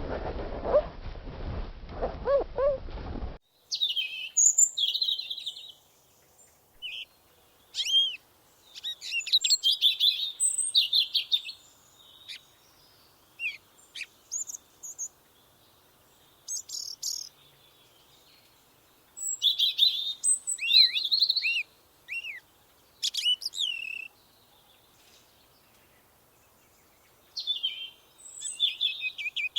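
A small animal whines in pitched cries for about three seconds before an abrupt cut. A songbird then sings in short bursts of quick chirps and trills, with pauses between phrases.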